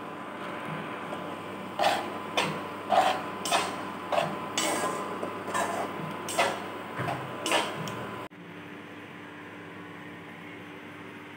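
Metal spatula striking and scraping against an aluminium kadhai while stirring noodles: about a dozen clinks, roughly two a second, over a steady hum from the induction cooktop. The clinking stops abruptly about eight seconds in, leaving only a steady hum.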